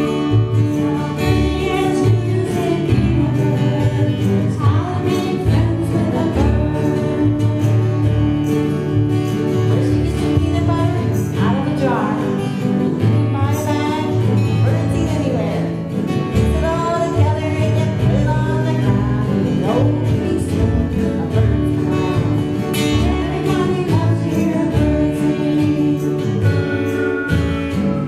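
Live acoustic country-gospel music: a steel-string acoustic guitar strummed and an upright double bass plucked, with a woman singing the melody.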